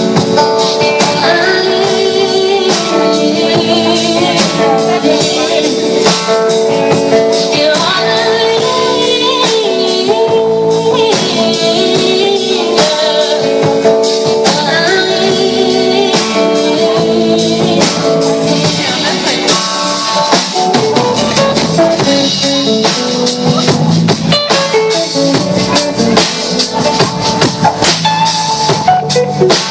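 Live band music played through a stage PA, with drums, tambourine and guitar and a wavering vocal line over a held chord, in a passage with no lyrics.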